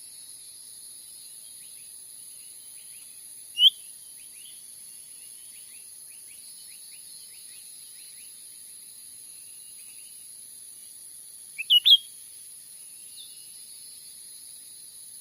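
Cucak ranting bird calling in short, sharp high notes: one about three and a half seconds in and a quick run of three near the end. A steady high insect drone and faint rapid chirping run underneath.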